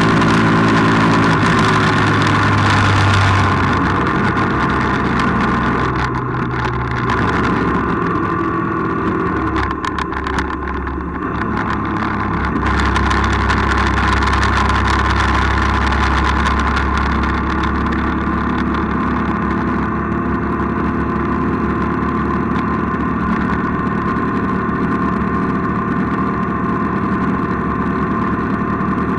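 Engine of a road vehicle running while driving, with rushing road and wind noise stronger in the first few seconds. It eases off and dips in loudness between about six and twelve seconds in, then pulls steadily again at a low, even pitch.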